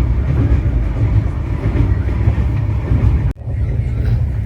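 Running noise of a moving passenger train, a steady low rumble of wheels on track. It breaks off for an instant about three seconds in and then carries on.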